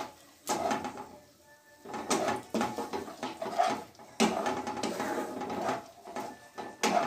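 Spatula scraping and stirring a wet tomato-and-onion masala in a non-stick kadai, in irregular strokes with a short pause about a second in.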